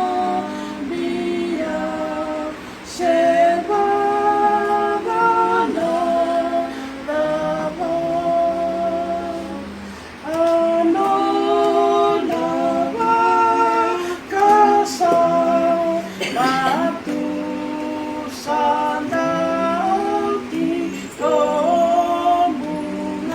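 Two women singing a hymn together in harmony, in long held phrases.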